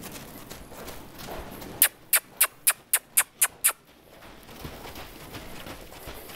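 A quick run of eight sharp kissing noises made through pursed lips, about four a second, from about two seconds in to near the four-second mark: a handler's cue to a horse to move on or pay attention.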